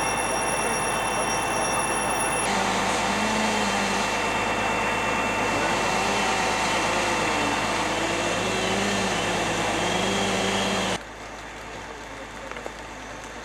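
Steady loud rushing, rumbling noise of running machinery, with faint muffled voices in it. It cuts off abruptly about eleven seconds in, leaving a much quieter background.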